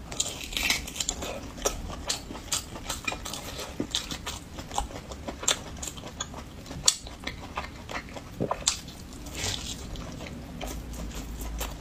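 Close-miked eating: biting into and chewing tender stewed beef rib meat pulled off the bone, many irregular small mouth clicks.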